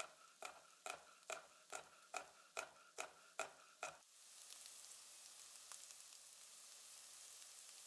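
A chef's knife chopping garlic on a bamboo cutting board, about ten even strokes at roughly two and a half a second. About four seconds in, this gives way to a steady sizzle of sliced onions frying in oil in a pan.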